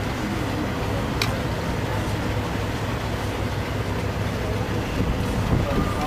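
Steady low outdoor rumble with a single sharp click about a second in.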